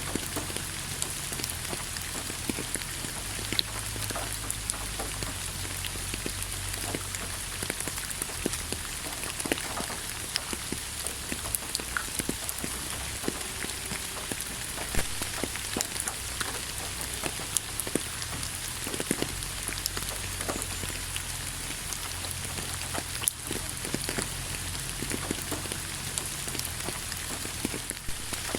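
Steady rain falling: a constant hiss with many separate drops tapping on a surface, a few of them louder.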